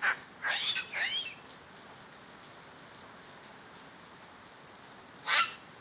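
Steady rain hiss with a sulphur-crested cockatoo giving short squawks: three in quick succession in the first second and a half, then one louder screech about five seconds in.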